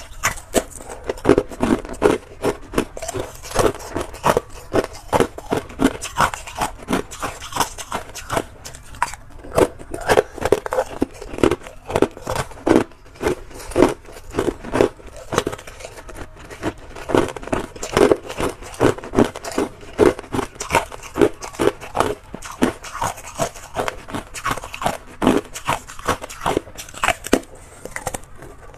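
Thin, flat discs of hard ice being bitten and chewed close to a clip-on microphone: rapid, irregular sharp cracks and crunches, several a second.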